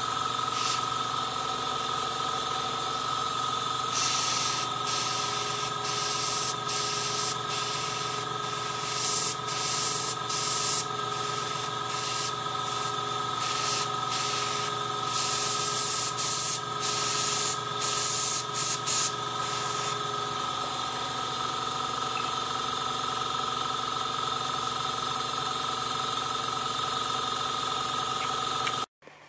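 An airbrush compressor running steadily, with many short hissing bursts of spray from the airbrush in quick succession from about four seconds in to about twenty seconds in. Everything cuts off abruptly just before the end.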